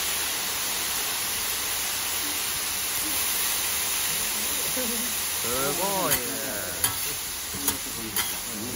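Fujinomiya yakisoba noodles and cabbage sizzling steadily on a hot flat-top griddle. In the second half, metal spatulas turning the heap knock sharply against the griddle plate four times.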